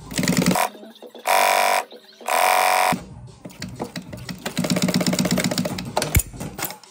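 Industrial sewing machine stitching in short runs: two brief bursts of rapid needle strokes, then a longer steady run that stops shortly before the end, with one sharp click near the end.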